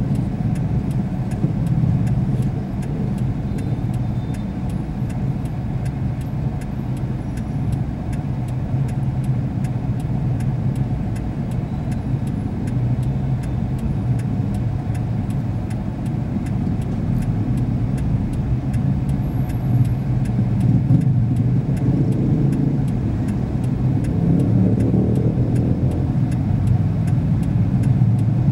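Slow street traffic heard from inside a car's cabin: the engines of cars and motorcycles close around it make a steady low hum, which grows louder in the last few seconds. A faint regular ticking sounds under it.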